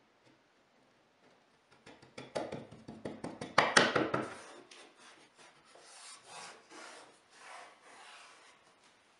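A thin pine panel being pressed and shifted into place on top of a small wooden box held in a frame clamp: a quick cluster of wooden knocks and scrapes about two seconds in, loudest near the middle, then a few softer strokes of hands rubbing over the wood.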